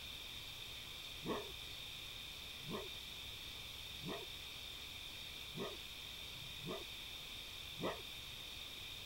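Fox barking: six short single barks about a second to a second and a half apart, each sweeping upward in pitch, the first and last the loudest.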